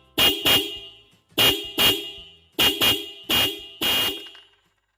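Hella Compact 12 V electric disc horn sounding in short double toots: four quick pairs of blasts, the last blast a little longer than the rest.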